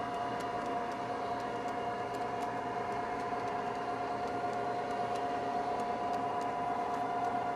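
O-gauge model train running on the layout: a steady electric motor whine over a low hum, with faint irregular clicks from the wheels on the track.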